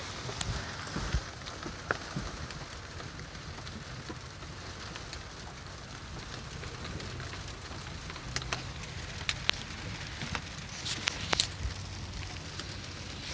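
Rain and sleet pattering on a small sailboat's cabin roof in a storm, a steady patter with scattered sharp ticks that come more often near the end.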